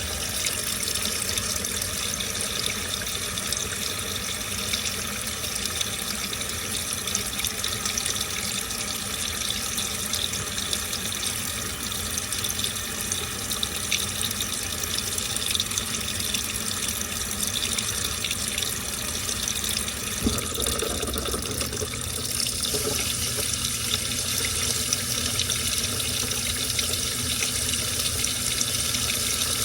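Washing machine with water running into and through the drum during a wash cycle: a steady rush of flowing water.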